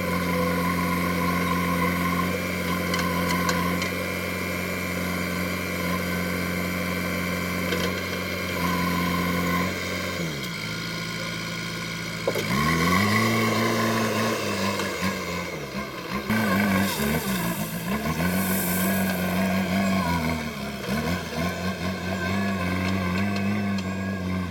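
JCB backhoe loader's diesel engine running steadily, then dropping in pitch about ten seconds in. After a sharp click a couple of seconds later it revs up again, its pitch rising and falling repeatedly as it works under load.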